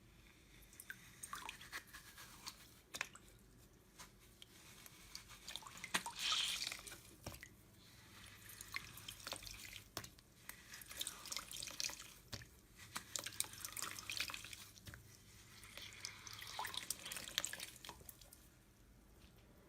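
Slime being squished: irregular soft wet clicks and crackly pops in uneven clusters, loudest about six seconds in.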